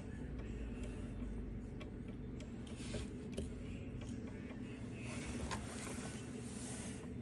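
Scattered small clicks and scraping, with denser rustling in the second half, over a steady low hum: small parts and tools being handled.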